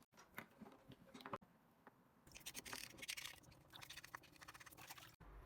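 Faint, rapid scrubbing on a NeilMed nasal irrigator as corrosion from leaked batteries is cleaned off it, starting about two seconds in, after a few small clicks.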